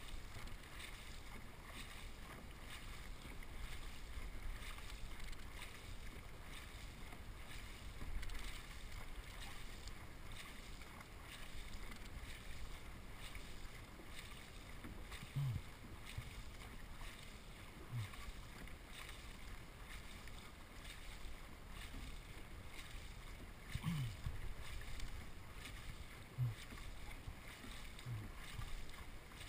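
Faint rhythmic splashing of a dragon boat crew's paddles stroking through the water, with water washing along the hull. A few brief low sounds come in the second half.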